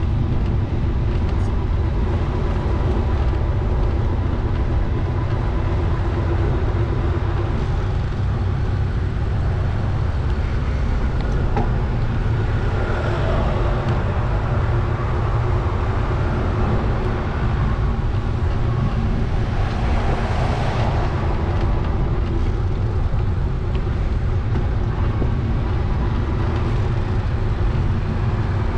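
Steady low rumble of a bicycle ride: wind buffeting the camera's microphone over tyre noise on the path. A louder swell of hiss rises and fades about two-thirds through.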